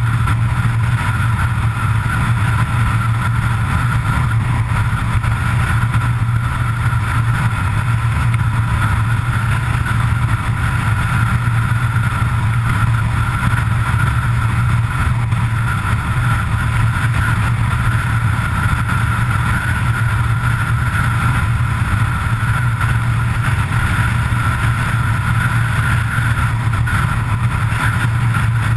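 Road vehicle cruising at a steady speed on a highway: an unbroken engine drone with a steady rush of road and wind noise, no change in speed.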